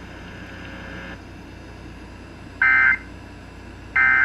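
Emergency Alert System end-of-message signal: two short bursts of digital data tones a little over a second apart, the second coming near the end, over a low steady hiss.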